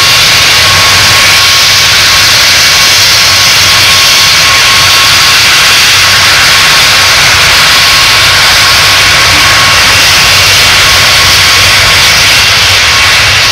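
Antonov An-124-100M's four Progress D-18T turbofans running at taxi power as the freighter rolls on the ground: a loud, steady jet whine with a constant high tone over a low rumble.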